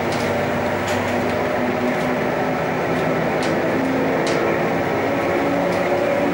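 Running noise inside a moving public-transport passenger vehicle: a steady rumble with motor hum that shifts in pitch, and light clicks and rattles every second or so.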